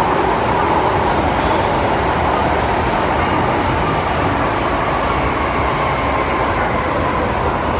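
MTR M-Train running, heard from inside the passenger car: a steady rumble of wheels and running gear with a faint whine riding over it.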